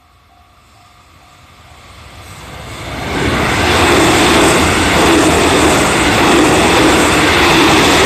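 JR Central 313 series electric train approaching and passing close by: the rumble swells over about three seconds into a loud, steady rush of wheels on rail and motor hum. A level crossing warning bell, ringing about twice a second, is heard at first and is then drowned out by the train.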